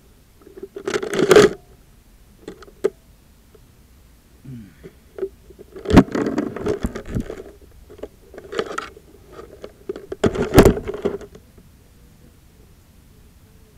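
Handling noise from the camera being picked up, moved and set down: bursts of rubbing and scraping with sharp knocks against the body. The bursts come about a second in, several times in the middle, and a last loud one with a knock near the end.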